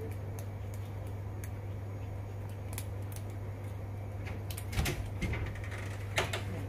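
Small clicks and scrapes of a thin metal pick and hard plastic parts as tangled hair is picked out of a robot vacuum's main-brush end bearing cap, with a few sharper clicks near the end. A steady low hum runs underneath.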